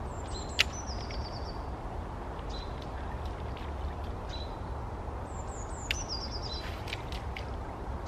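A small songbird sings twice, each a quick, high trill stepping down in pitch, with a few single high notes between. A few sharp clicks sound over a steady low rumble of wind or distant noise.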